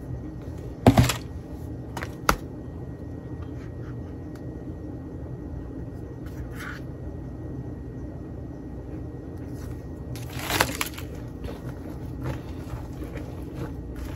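A few knocks and scrapes of a spatula against a plastic whipped-topping tub and a mixing bowl as the topping is scraped into a salad, the sharpest knock about a second in and another cluster of scrapes a little past ten seconds, over a steady low hum.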